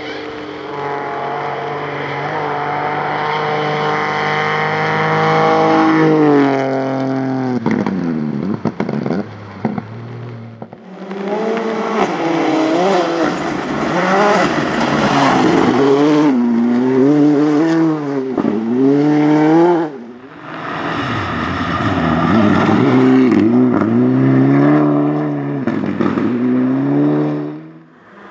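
Rally cars driven flat out along a special stage, three passes one after another, each engine revving hard with quick dips in pitch at gear changes and lifts off the throttle.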